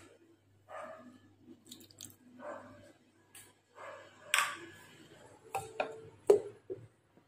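Scattered clinks and rustles of a steel mixer-grinder jar being handled, with a sharp knock about six seconds in as its plastic lid is put on.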